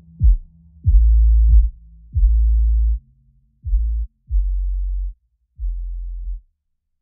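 Background electronic music: a run of deep bass notes, each struck sharply and held briefly, growing quieter toward the end.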